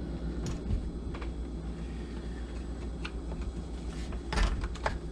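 A few light clicks and taps of hand tools against chainsaw parts during disassembly, the busiest cluster near the end, over a steady low hum.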